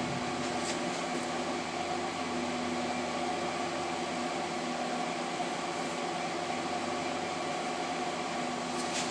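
Benchtop CNC milling machine humming steadily, a machine drone with several steady tones and no knocks or changes.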